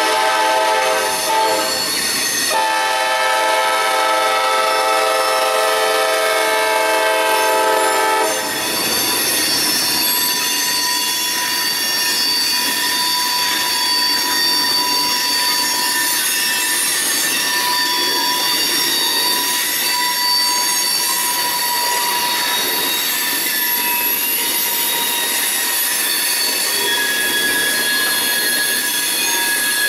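Freight locomotive horn blowing for a grade crossing: a blast that ends about two seconds in, then one long blast of about six seconds. After it the locomotives and covered hopper cars roll past close by, with a steady wheel squeal over the rails.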